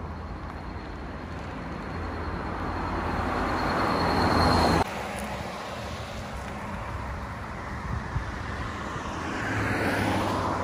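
Road traffic passing: a vehicle's noise grows louder and cuts off suddenly about five seconds in, and another vehicle comes up near the end.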